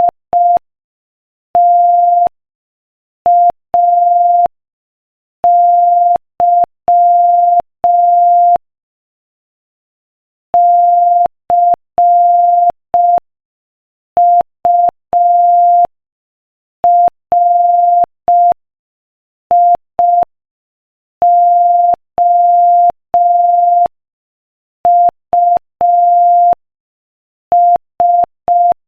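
Morse code sent at 5 words per minute as a single steady beeping tone: short dits and long dahs in letter groups, with longer pauses between words. Each beep switches on and off sharply with a faint click.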